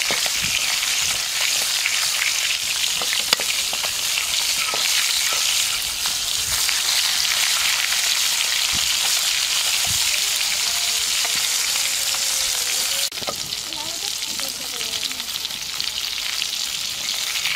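Whole small fish shallow-frying in hot oil in a metal wok, a steady loud sizzle, with a metal spatula scraping and tapping in the pan. About two-thirds of the way through, the sizzle drops a little quieter.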